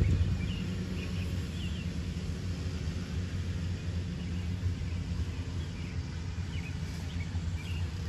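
Outdoor background of a low, steady vehicle-traffic rumble, with small birds chirping briefly near the start and again near the end.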